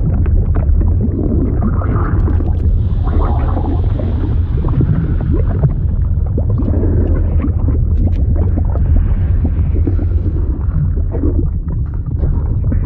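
Liquid sound effect for a fluid simulation: a deep, steady rumble with many small crackles and pops over it.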